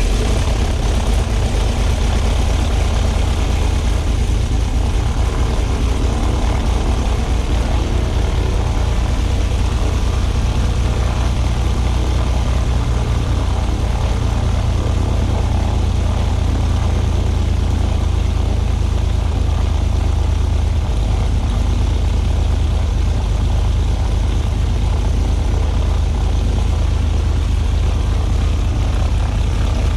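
Cessna 310's piston engine and propeller idling steadily right after start-up, a loud, even low drone.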